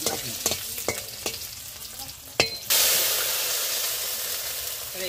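Food frying in a pan of hot oil, stirred with a utensil that knocks against the pan. About two and a half seconds in, a much louder sizzle starts suddenly, then slowly dies down.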